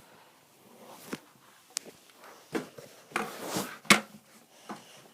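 Handling noise from a plastic smoke alarm just taken off its mount: scattered sharp plastic clicks and knocks, with a brief rustling scrape a little past three seconds and the loudest click just before four seconds.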